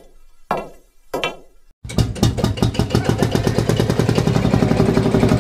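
A few sharp hits with long reverberating tails, about two-thirds of a second apart, then from about two seconds in a tractor engine running loud and steady, with a rapid even chugging.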